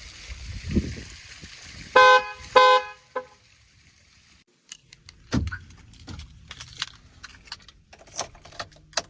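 Car horn giving two short, loud honks about two seconds in, followed by a brief fainter third toot. After that come scattered clicks and knocks.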